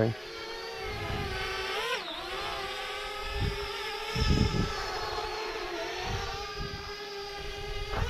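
Parrot Bebop 2 quadcopter's four propeller motors whining steadily. The pitch dips and rises again about two seconds in as the drone lifts off and climbs away. A few low thumps of wind gust on the microphone come about halfway through.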